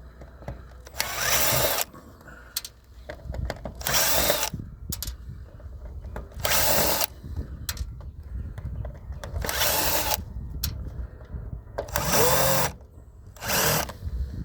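Power drill driving screws out of a plastic robot-vacuum housing: six short runs of the motor, each under a second, with small clicks and plastic clatter of handling between them.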